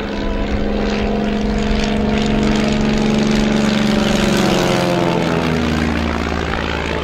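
Single-engine propeller crop-duster aircraft flying low past, its engine note sliding down in pitch as it goes by, about four to six seconds in.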